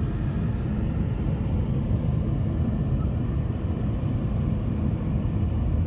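Road noise inside a moving car's cabin: a steady low rumble from the tyres and engine while driving on a paved road.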